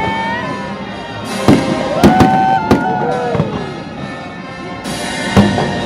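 Aerial fireworks bursting, with several sharp bangs a second or so apart and a gap near the end.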